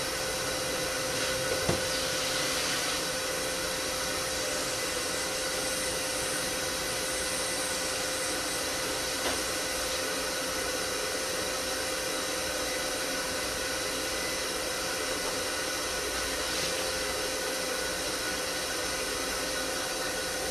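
Steady, even whooshing hiss like a fan or blower, with a faint steady hum running through it and a couple of faint clicks.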